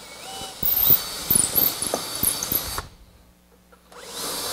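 Cordless drill boring a shank clearance hole through a plywood fence for a drywall screw. It runs for about two seconds, stops for about a second, then starts again near the end.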